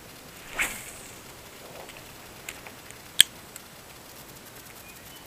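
Quiet fishing-reel and rod handling: a brief rush of noise about half a second in, then a single sharp click about three seconds in, over a faint steady hiss.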